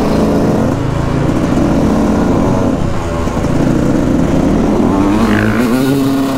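2001 Yamaha YZ125's single-cylinder 125cc two-stroke engine revving up and down under load while riding, its pitch dipping about halfway and climbing again near the end.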